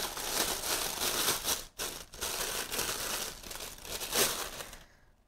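Clear plastic bag crinkling and rustling as a monitor stand arm is handled and pulled out of it. The crinkling stops about a second before the end.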